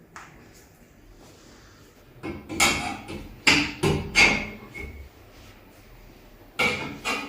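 Sharp thumps from a chiropractic adjustment on a treatment table: a quick cluster of four or five about two seconds in, then two more near the end.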